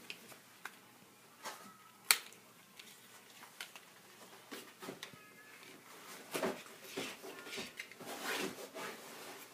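Handling sounds as a stylus is taken out of a small cardboard box: scattered light clicks and taps, one sharp click about two seconds in, and a stretch of rustling and scraping in the second half.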